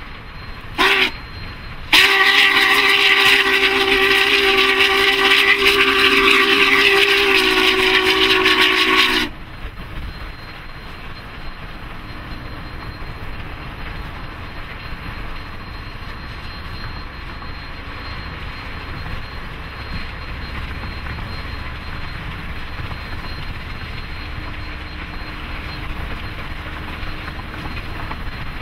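Union Pacific 844, a 4-8-4 Northern steam locomotive, blowing its chime steam whistle, several tones sounding together: a short blast about a second in, then a long blast of about seven seconds that cuts off about nine seconds in, the closing short and long of a grade-crossing signal. After that the locomotive and its train run past at speed with a steady rumble.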